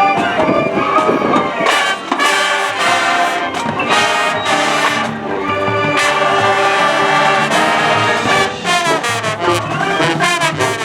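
High school marching band playing its competition show: full brass with trumpets and trombones sounding held chords and moving lines, with a flurry of quick short notes near the end.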